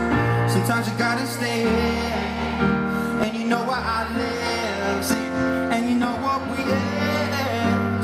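Pop song: a sung melody over sustained bass notes and chords.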